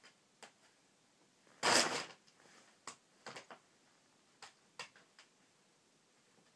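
A kitten pouncing into a large plastic bag: a loud crinkling rustle of the plastic for about half a second, then a string of light taps and small rustles as it plays against the bag.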